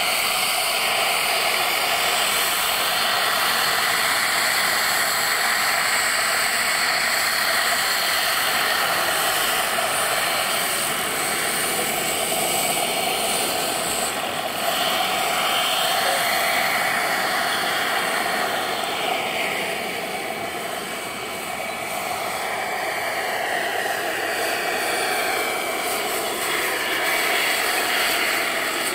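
Turbine-powered RC model helicopter in flight: a steady small jet-turbine whine with rotor noise, its pitch rising and falling several times as the helicopter passes and manoeuvres.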